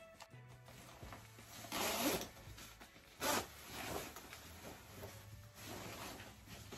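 Zipper of an Alpha textile motorcycle jacket being pulled up, with the jacket's fabric rustling as it is put on. There are several short zipping strokes, the loudest about two and three seconds in and another near the end.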